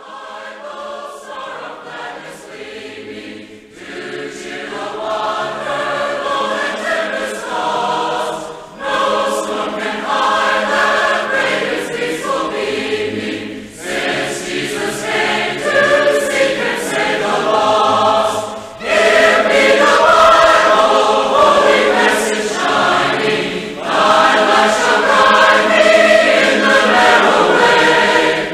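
A choir of mixed voices singing a hymn a cappella, in phrases of about five seconds with short breaths between them; it fades in over the first few seconds.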